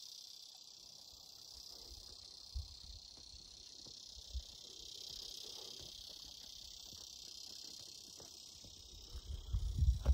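A steady chorus of insects, high-pitched and unbroken. A few low knocks break in briefly, and low thumps cluster near the end.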